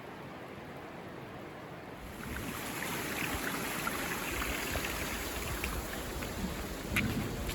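Steady rushing of river water mixed with falling rain, growing louder about two seconds in, with scattered raindrop ticks.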